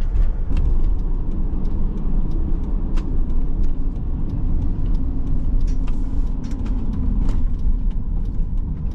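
Cargo van driving on a road, heard from inside the cab: a steady low road and engine rumble with scattered light clicks and rattles.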